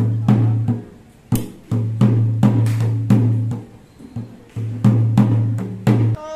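Ritual temple drumming: drums struck in quick groups of strokes over a sustained low hum, pausing briefly about a second in and again about four seconds in.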